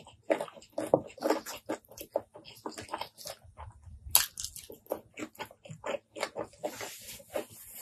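Close-miked chewing of a handful of curry-soaked rice and prawn, with wet smacking clicks and squelches coming several times a second.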